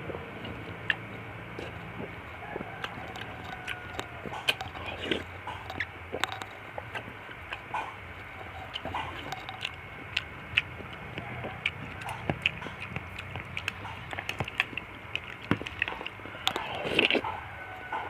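Close-up eating sounds: chewing and small mouth clicks from eating fruit soup with nata de coco, with many short sharp clicks throughout and a louder, longer stretch near the end.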